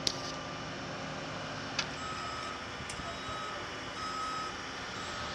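A vehicle's reversing alarm beeping about once a second from about two seconds in, over a steady mechanical hum, with two sharp clicks in the first two seconds.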